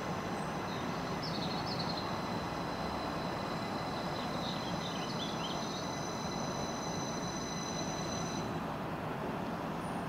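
A train running with a steady rumble and a high, steady whine that stops about eight and a half seconds in. A bird chirps briefly twice over it.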